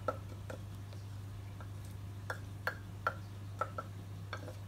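Wooden pestle knocking in a clay mortar as a wet chili, garlic and palm-sugar sauce is pounded: short, sharp knocks at an uneven pace, about two a second.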